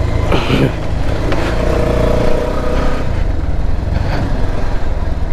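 Bajaj Pulsar 220F motorcycle's single-cylinder engine running steadily as the bike climbs a rough off-road hill track.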